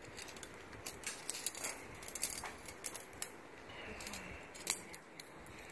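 Metal locking carabiners clinking and clicking as they are handled, in a string of light, irregular sharp clicks, the sharpest about three-quarters of the way through.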